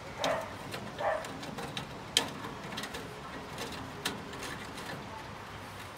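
Light metallic clicks and taps of a screw being driven into the burner's mounting bracket inside a gas grill's firebox, the sharpest about two seconds in. Two short, soft calls come near the start.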